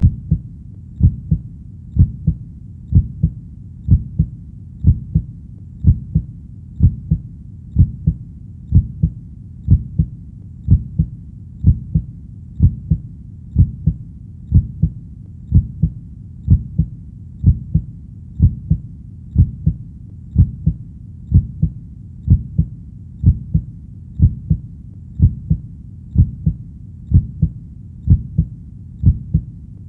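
Heartbeat in a steady lub-dub rhythm of about one beat a second, each beat a low double thump with the first thump the stronger.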